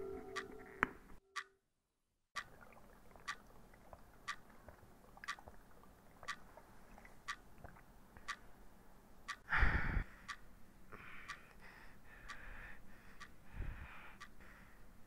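A clock ticking, sharp and even at about one tick a second. About ten seconds in comes a short, loud rush of noise, followed by soft breathy sounds.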